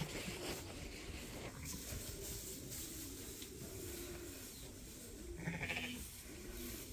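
Sheep bleating: repeated low calls, with one louder bleat about five and a half seconds in.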